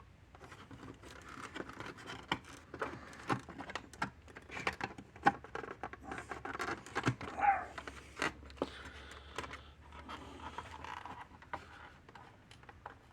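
Irregular small clicks, taps and scrapes of hands working on wires and plastic parts inside an electric fence energizer during reassembly.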